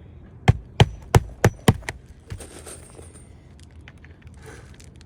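Five sharp knocks in quick succession, about three a second, about half a second in; the rest is quiet.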